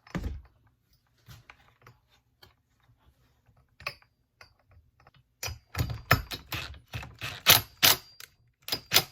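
A socket ratchet working the blower's flywheel nut: sparse metallic clicks at first, then from about halfway a loud, dense run of ratchet clicks in quick bursts, one burst per stroke. A single thump opens the stretch.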